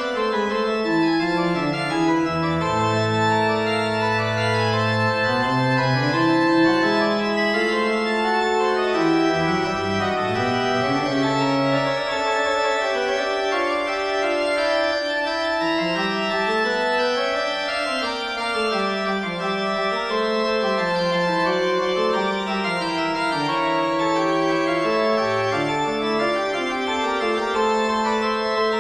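Organ music: a slow melody over held chords, the notes sustained and moving in steps with no pauses.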